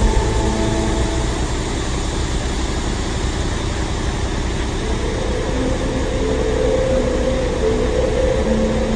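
Steady low rumble of motor vehicles running. About halfway through, a few held tones that step up and down in pitch join in over the rumble.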